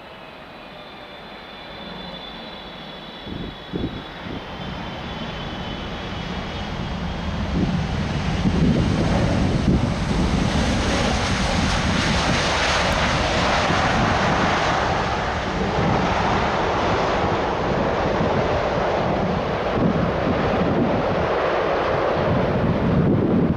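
Boeing 777F freighter landing and rolling out along the runway, heard through its GE90 engines. A faint falling engine whine and a couple of brief thumps give way, from about eight seconds in, to a loud, steady roar that lasts to the end.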